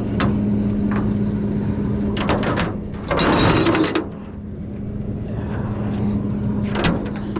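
Flatbed tow truck running with a steady hum, with clinks and knocks of the steel winch cable against the diamond-plate deck. About three seconds in comes a loud, harsh scraping noise that lasts about a second and stops suddenly.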